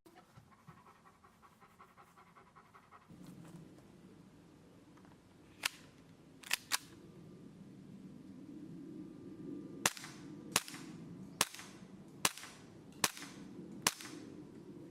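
Airsoft gas pistols firing single shots for a loudness comparison: three faint, sharp pops around the middle, then six louder, sharper shots in a steady string, about 0.8 s apart.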